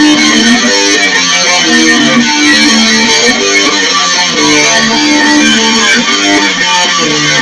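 Doom metal song: electric guitars play a slow riff of held notes, loud throughout.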